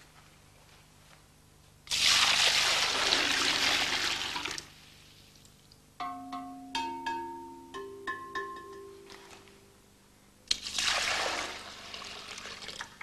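Water poured from a jug into terracotta flowerpots, twice. Between the pours comes a run of short ringing notes at several pitches, each dying away: the clay pots struck to sound their pitch, which is tuned by how much water each holds.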